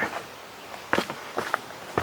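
Footsteps of a hiker walking on a woodland trail, a few separate steps starting about a second in.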